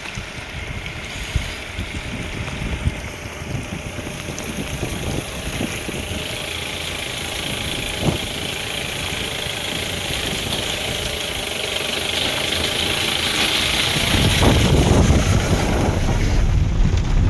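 Off-road 4x4's engine running as it drives a rough track, with a few sharp knocks; the low rumble grows markedly louder about fourteen seconds in.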